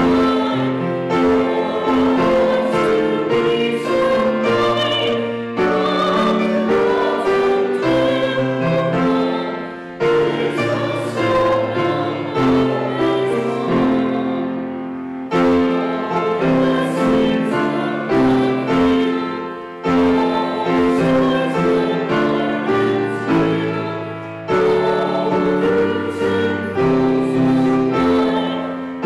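Grand piano playing a slow piece in phrases of about five seconds, each beginning with struck chords that are left to ring and fade.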